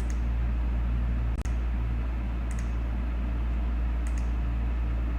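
Steady low hum of room noise, with four faint computer-mouse clicks about a second or more apart as the historical-imagery dates are stepped through.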